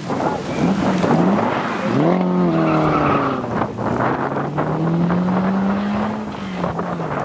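Historic rally car engine revving hard under acceleration: the engine note jumps up sharply about two seconds in, climbs steadily, then drops near the end.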